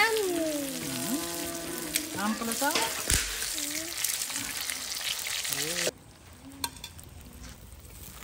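Battered small fish frying in hot oil in a cast-iron skillet: a dense, crackling sizzle, with a few knocks as a metal spatula turns and lifts the pieces. The sizzle stops suddenly about six seconds in.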